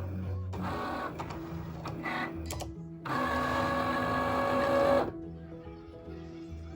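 Cricut cutting machine's carriage motors running through a Print Then Cut job, with a louder steady whir about three seconds in that lasts about two seconds and stops suddenly. The blade is still raised, so the run cuts nothing.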